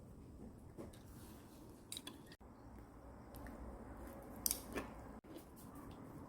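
Faint scattered clicks and soft handling noises, with a sharper cluster of clicks about four and a half seconds in.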